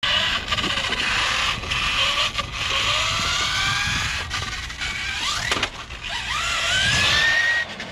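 Kyosho Fazer Mk2 FZ-02L 1/10-scale electric RC car driving on pavement: its electric motor and gears whine, rising in pitch several times as it speeds up, over a hiss of tyres rolling on rough concrete and asphalt. The longest climb in pitch comes near the end.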